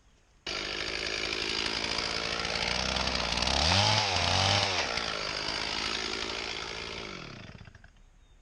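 Large Stihl two-stroke chainsaw running at high revs through hickory wood, starting suddenly; about halfway through the engine pitch dips under load and recovers, then the sound fades out near the end.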